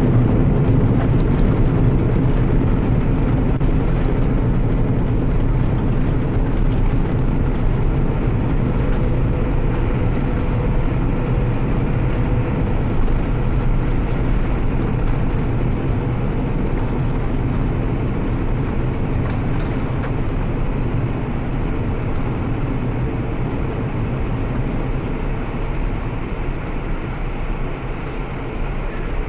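Steady low rumble of a Lufthansa Airbus A340-600's jet engines, with a faint steady hum. It eases off slowly throughout.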